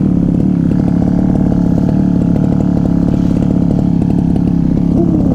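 Stihl FR 3001 backpack brushcutter's two-stroke engine running steadily at an even speed, close to the microphone.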